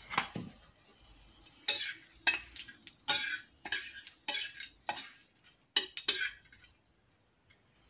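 Metal spatula scraping and stirring whole spices in hot oil in a metal kadai: about a dozen short scrapes against the pan over a faint sizzle. The stirring stops about six and a half seconds in.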